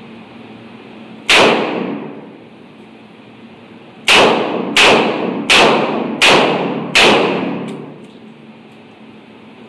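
Taurus RT 82 .38 Special revolver firing six shots. There is one shot, a pause of nearly three seconds, then five more in quick succession about two-thirds of a second apart. Each shot rings on briefly in the reverberant indoor range.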